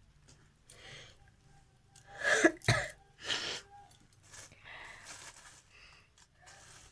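A person sneezing: a breath drawn in about a second in, then a loud sneeze a little past two seconds in, followed by softer breathy sounds.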